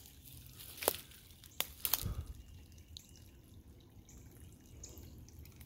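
A dog's paw splashing in shallow creek water and wet mud at the bank: a few small sharp splashes and drips about one to two seconds in, then only faint water sounds.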